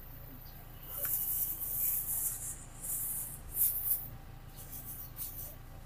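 Soft rustling and shuffling as food packs are handled in a plastic basket, in stretches from about a second in and again briefly past the middle, over a low steady hum.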